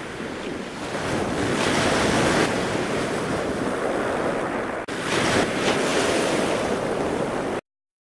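Rushing, surf-like noise with no tones in it, swelling and easing and briefly breaking off just before the fifth second. It stops abruptly shortly before the end.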